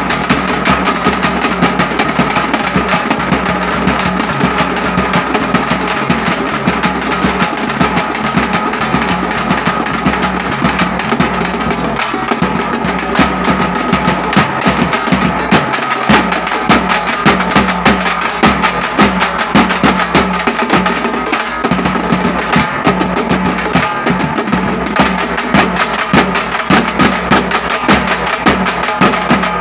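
Thappu frame drums beaten with sticks by a troupe, alongside a large steel drum, playing a fast, dense, unbroken drumming rhythm.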